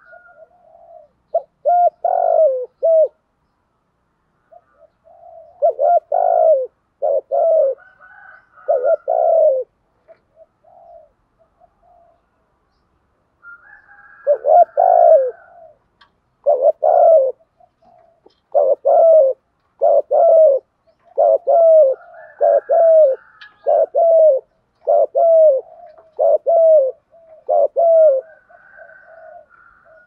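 Caged spotted dove cooing in repeated low, falling notes: a short phrase near the start, another a few seconds later, then a long run of coos about one a second through the second half. This is a decoy dove's cooing, kept up to lure and provoke wild doves.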